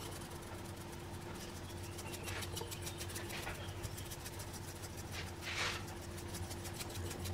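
Salt being shaken from a stainless-steel shaker onto wet, egg-coated chicken pieces in a bowl, heard as faint rapid ticking with a few soft rustles. A steady low hum runs underneath.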